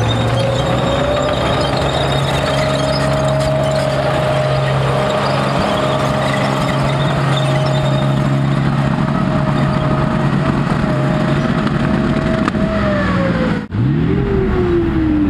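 A military vehicle's engine running loudly and steadily under a high whine. The whine rises at the start, holds, then falls away near the end. The sound cuts out for an instant, then another whine falls in pitch.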